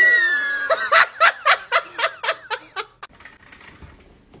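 A high-pitched squeal and then a run of laughter, about four bursts a second. It stops about three seconds in, leaving only faint taps.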